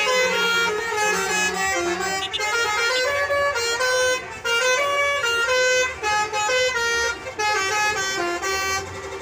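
Bus telolet horns, multi-tone melodic horns, playing short tunes over one another in quick stepped notes.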